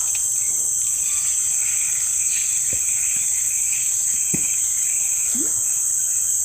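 Insect chorus: a steady, high-pitched, unbroken drone.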